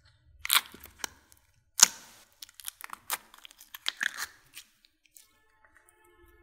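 Glossy slime being pried and pulled out of a small plastic pot, giving a run of sharp sticky pops and crackles, the loudest about two seconds in.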